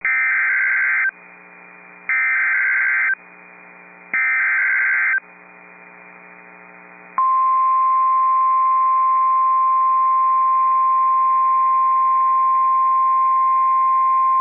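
NOAA Weather Radio emergency alert tones heard through a radio receiver. Three one-second bursts of the screeching SAME digital header data come about a second apart. About seven seconds in, the steady single-pitch 1050 Hz warning alarm tone starts and holds, signalling an urgent alert such as a severe thunderstorm warning.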